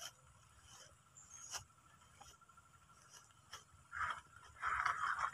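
Faint scraping and rustling with a few light clicks: a short burst about four seconds in and a longer one near the end.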